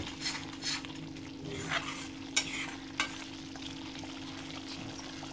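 A metal spoon stirring and scraping thick masala gravy in a metal kadai as it bubbles and sizzles on a gas stove. Short scraping strokes come through the first three seconds, then the bubbling goes on more steadily, with a steady low hum underneath.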